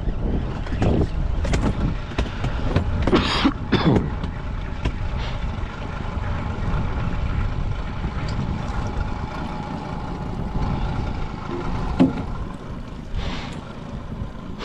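Boat motor running with a steady low rumble, with a few sharp knocks about three to four seconds in and again near the end.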